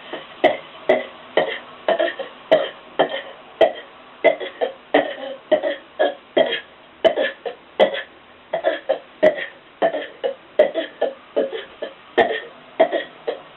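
A person burping on purpose over and over in rapid succession, about two short burps a second, in a timed run at a hundred burps in a minute.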